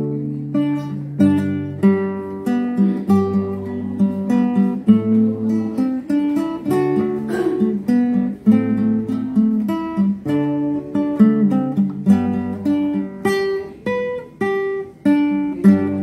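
Solo classical guitar fingerpicked, a melody in G major over low bass notes in waltz time (3/4), the plucked notes ringing on one after another.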